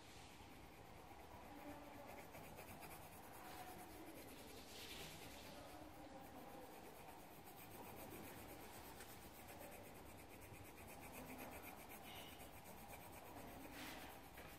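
Faint scratching of a coloured pencil shading on paper, a little louder about five seconds in and again near the end.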